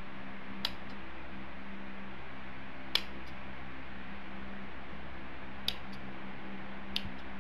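Four short, sharp snips as leaves are cut off a hibiscus stem cutting, spaced a few seconds apart over a steady low hum.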